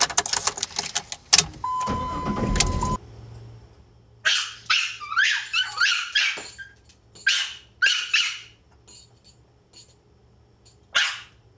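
A Pomeranian left home alone barks repeatedly in a run of sharp barks, then once more near the end. Before that, clicks and a steady beep sound inside a car, cutting off abruptly.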